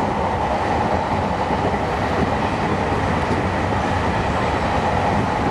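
Meitetsu 9500-series electric train running at speed, heard from inside the front car: a steady rolling rumble of wheels on rail with a steady hum.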